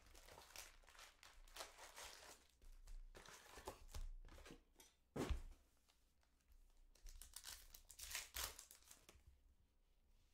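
Faint crinkling and tearing of a trading-card box's packaging and its foil card packs as they are opened and handled, with a single sharp knock about five seconds in.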